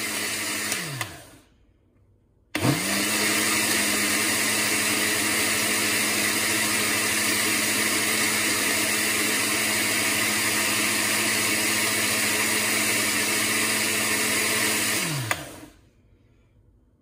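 Panasonic countertop blender blending an iced mango smoothie. It clicks off about a second in and its motor winds down, then it is switched back on, spins up and runs steadily for about twelve seconds. It clicks off again and winds down a couple of seconds before the end.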